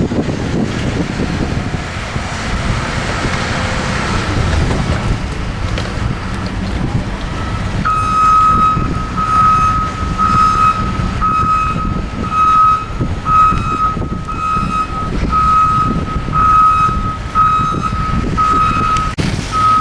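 A truck's reversing alarm beeping steadily, about one and a half beeps a second, starting about eight seconds in, over a low engine rumble.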